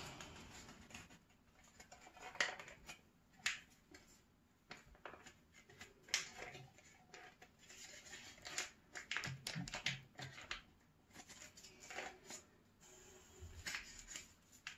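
Faint crinkling and scattered clicks of a flan-mix sachet being handled and opened over a jug.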